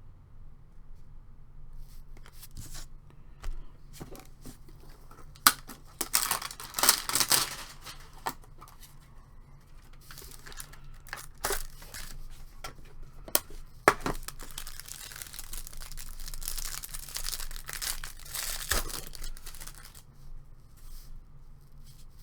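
Trading-card pack wrappers being torn open and crinkled by hand: a short bout about a quarter of the way in and a longer one from past the middle into the last part, with scattered sharp clicks of handling between.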